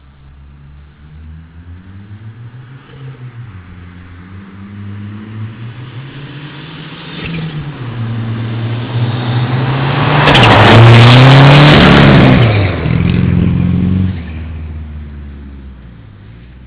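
Mitsubishi Starion's four-cylinder engine revving hard, its pitch repeatedly climbing and dropping with throttle and gear changes. It grows louder as the car approaches, is loudest for a couple of seconds as it goes by about two-thirds of the way through, then fades as it moves away.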